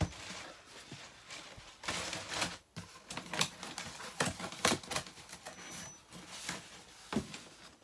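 A cardboard delivery box and its quilted packing wrap being handled and rummaged through: irregular rustling and crinkling, broken by scattered sharp clicks and knocks of cardboard.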